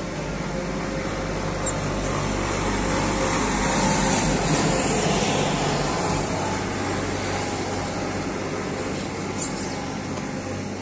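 Road traffic noise: a steady rumble and hiss from passing vehicles, swelling about four seconds in as one goes by, then easing.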